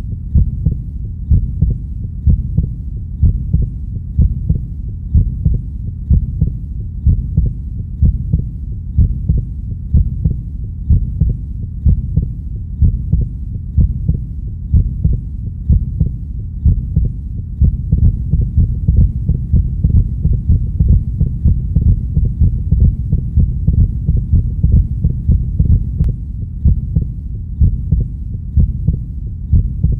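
Heartbeat beating steadily and slowly, a deep low thud about once a second, over a constant low hum.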